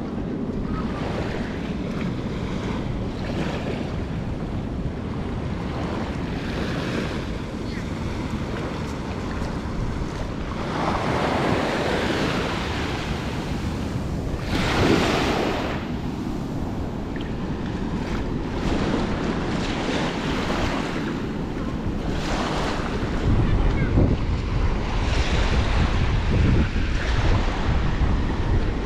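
Small waves lapping and washing up over the sand at the water's edge, with two louder washes near the middle. Wind buffets the microphone throughout, heavier over the last few seconds.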